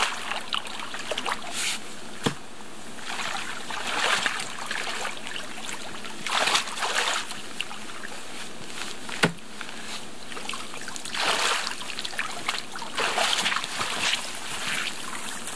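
Water splashing and sloshing in surges every few seconds as a person wades in knee-deep lake shallows and drags a waterlogged log out. Two sharp knocks cut through, about two seconds in and about nine seconds in.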